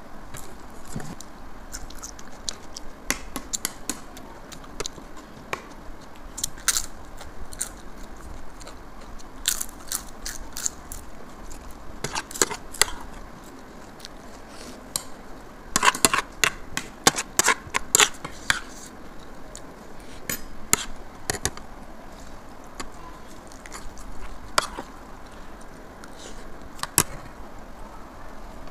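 Mealtime eating sounds of rice and red-bean curry: chewing, with spoons clicking and scraping against ceramic plates as sharp, short clicks scattered throughout, thickest about halfway through.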